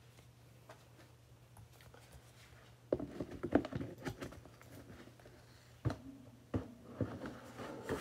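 Plastic lid being handled and fitted onto a plastic storage bin: a clatter of clicks and knocks about three seconds in, then a few separate plastic knocks.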